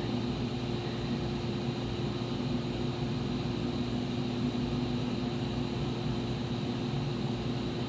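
Steady low hum with a faint high whine and no distinct events: constant background room tone.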